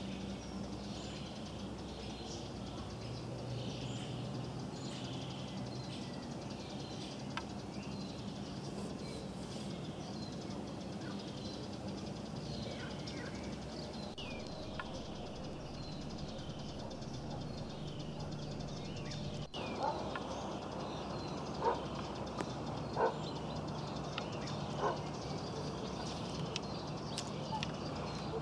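Small birds chirping over and over, over a steady low hum. Past the middle comes a short break, then a handful of sharp clicks.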